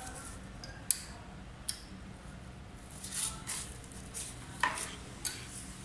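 A few sharp metal clicks and taps of an Allen key against a bolt and bracket on an electric scooter's front fork, with light rustling in between.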